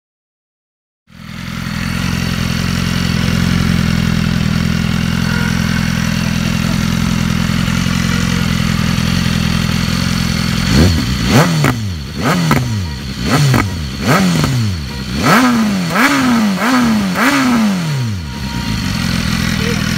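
BMW S1000RR inline-four running through an Arrow titanium slip-on exhaust with the baffle still fitted. It idles steadily, then about halfway through gets a string of about eight short throttle blips, the revs rising and falling each time, before settling back to idle.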